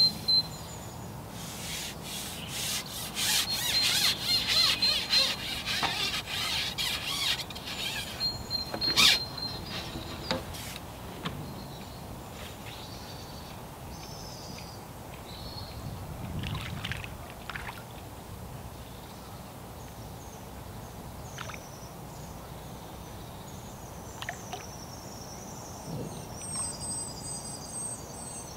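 Carbon fishing pole being handled: a rapid run of rubbing and clicking in the first several seconds, then occasional knocks, with small birds chirping throughout.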